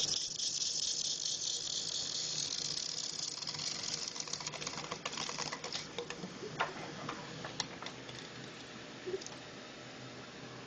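Industrial belt sander running with a steady low hum; a high hiss of abrasion fades over the first few seconds, then a run of irregular light clicks follows.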